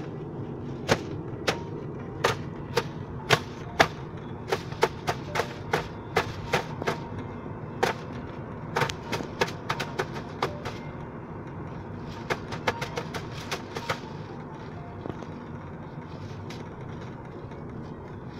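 Steady road and engine rumble inside a moving car's cabin, with many sharp, irregular clicks or taps close to the microphone that stop about three-quarters of the way through.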